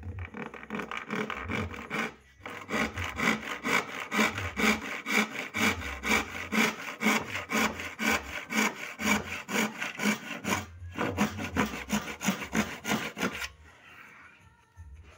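Hand saw cutting through a wooden board with rapid, even back-and-forth strokes, broken by two short pauses. The sawing stops a little before the end.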